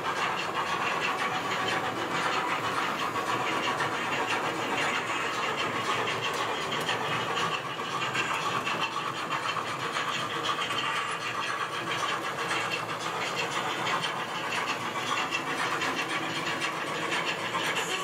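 H0 model steam locomotives 35 1039 and 50 4014 running on the layout: a steady running noise with hiss and fast chuffing. It comes up sharply at the start and then holds steady.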